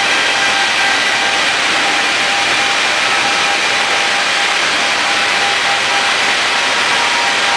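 Wood planing machine running, a loud steady rushing noise with a high whine held at one pitch.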